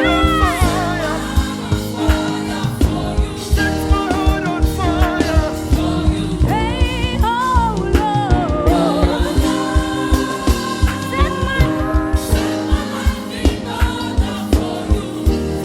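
Gospel worship music: singing with bending vocal runs over held chords and a steady beat of about two strokes a second.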